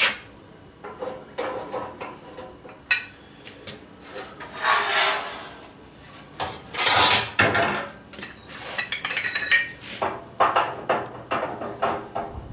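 Metal exhaust pipe sections being handled and fitted together by hand on a steel welding table: irregular clanks and knocks, with a few longer scrapes of metal on metal.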